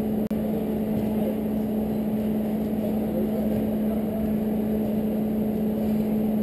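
A steady mechanical hum with a constant low tone and a fainter tone an octave above it, over a low rushing noise; the sound cuts out for an instant about a third of a second in.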